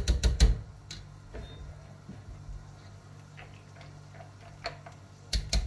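Quick clusters of sharp clicks or taps, one at the start and one near the end, with a few faint single clicks between them, over a steady low hum.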